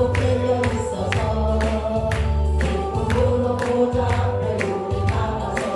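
A woman sings a gospel hymn into a microphone, with a congregation singing along, over accompaniment with a steady beat of about two strikes a second.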